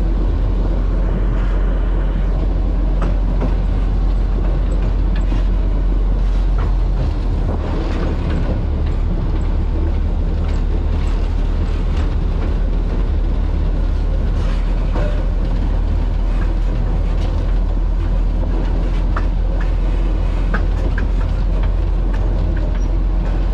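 The naturally aspirated 11-litre six-cylinder Cummins HBI-600 diesel of a 1949 GE diesel-electric locomotive running steadily, heard from the cab. Scattered light clicks and rattles come through over the engine.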